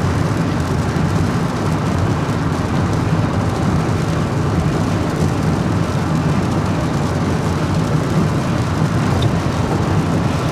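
Steady noise of a moving vehicle: a low rumble under a hiss, with no change in level.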